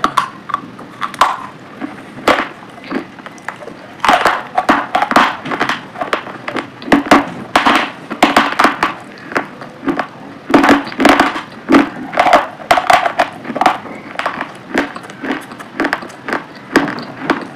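Close-miked crunching and chewing of crisp food in the mouth: a dense run of sharp crackles and bites, with a short lull about three seconds in.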